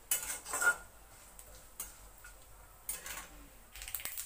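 Steel spatula scraping and tapping against an iron kadai while cashew nuts are stirred in hot ghee: irregular clinks and scrapes, the loudest about half a second in with a brief metallic ring, and a quick cluster near the end.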